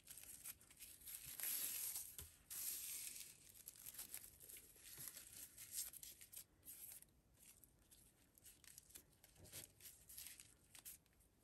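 Faint rustling of paper cord handled in the fingers, a bundle of strands being gathered and squeezed, loudest a second or so in and lighter afterwards.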